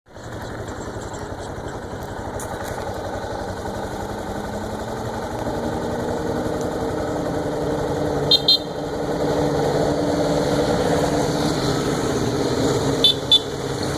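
A motor vehicle engine running steadily and growing gradually louder, with brief high-pitched chirps about eight seconds in and again near the end.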